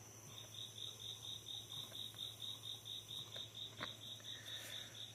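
A cricket chirping faintly and steadily, about five high chirps a second, over a low steady hum.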